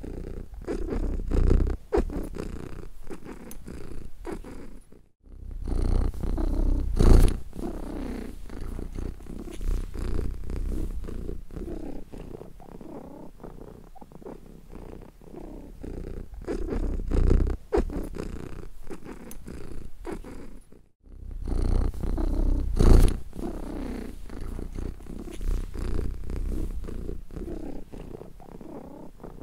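Domestic cat purring steadily, the purr swelling and fading with each breath, with two brief breaks about five seconds in and again about twenty-one seconds in.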